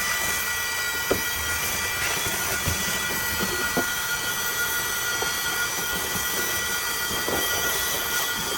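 Vacuum cleaner running steadily with a high whine, broken by a few short clicks as it picks things up.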